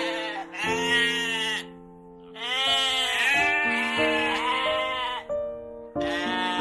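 A farm animal bleating several times, each call about a second long, over background music with sustained notes.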